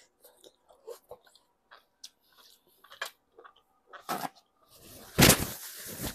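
Small wet chewing clicks and lip smacks from eating soft stewed pork on the bone. About five seconds in comes one loud nose blow into a paper towel, trailing off in a rustling hiss.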